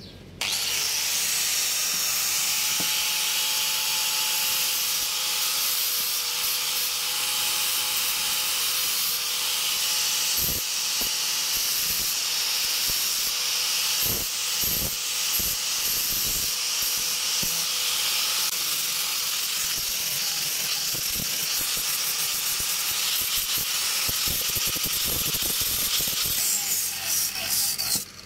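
Handheld electric angle grinder with an abrasive sanding disc grinding a wooden shovel handle: a steady motor whine under the hiss of the disc on the wood. It starts up just after the beginning and cuts off right at the end.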